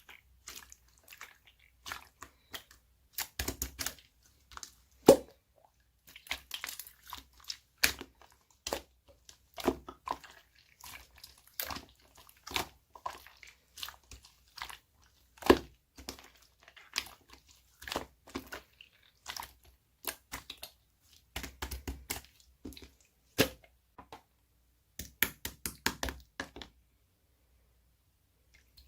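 Slime being squeezed, pressed and stretched by hand, making irregular sticky clicks and crackles.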